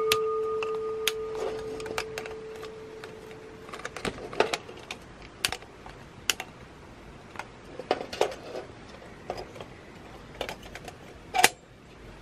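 Sharp, irregular metal clicks and clinks as a hurricane oil lantern's globe lever and wire frame are worked and a long-nose lighter is used to light the wick. At the start, a ringing metallic tone fades out over about four seconds.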